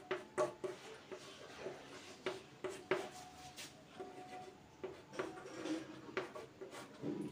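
Chalk writing on a chalkboard: an irregular run of short taps and scratches as the chalk strokes out Hindi letters.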